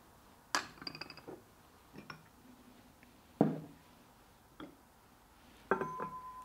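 Small ceramic bonsai pots knocking and clinking as they are picked up and set down, about five sharp knocks with the loudest about halfway through. Near the end a small glazed ceramic pot set down on the stone turntable rings with one steady tone that fades slowly.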